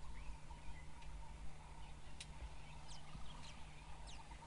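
Faint, short, high-pitched chirps, several of them in the second half and each falling in pitch, over a low steady rumble.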